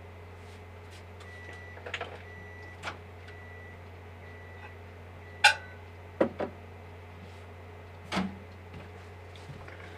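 Microwave oven beeping: a run of short high beeps about a second apart, followed by sharp clunks and knocks, the loudest a little past halfway, as its door is opened and a dish is handled.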